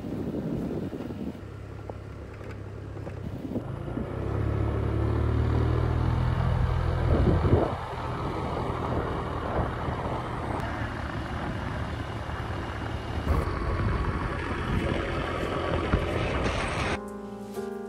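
Wind rushing over the microphone with a motorbike running underneath on a moving ride, surging louder in the middle. Music comes in just before the end.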